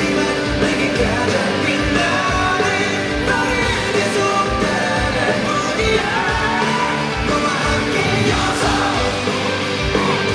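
Live rock band playing, with singing held over drums and a steady beat.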